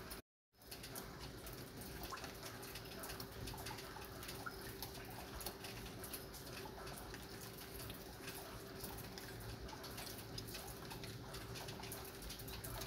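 Light rain pattering, a steady spread of many small scattered drop ticks. The sound cuts out for a moment just after the start.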